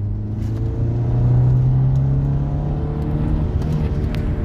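Car engine and road noise heard from inside the cabin while driving. The engine note rises about a second in as the car speeds up, then holds steady and eases off slightly near the end.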